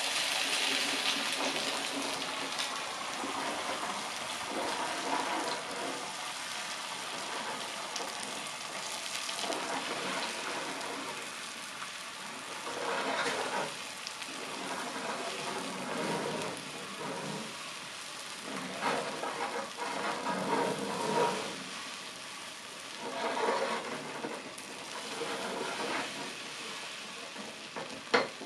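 Beaten egg sizzling in a nonstick frying pan while wooden chopsticks stir and swirl it, the sound swelling with each stirring stroke every few seconds. One sharp knock near the end.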